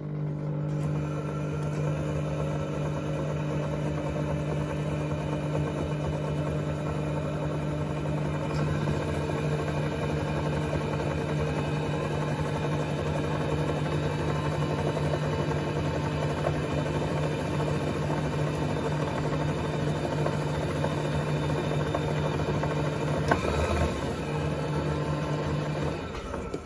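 Electric line winder's motor running with a steady hum as it spins a Redington Run fly reel's spool, winding backing line onto it, then stopping near the end.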